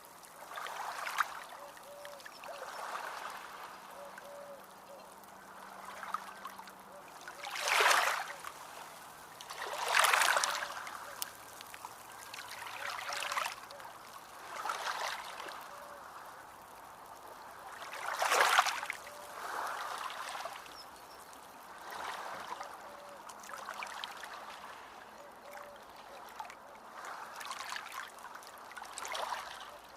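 Ocean waves washing in and drawing back, a hissing wash that swells and fades every few seconds, with the biggest surges about eight, ten and eighteen seconds in.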